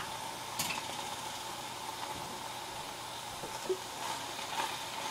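Steady low hiss with a faint high hum, broken by a few soft clicks.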